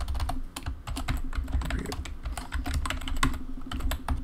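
Typing on a computer keyboard: a quick, uneven run of about a dozen key clicks as a password is entered.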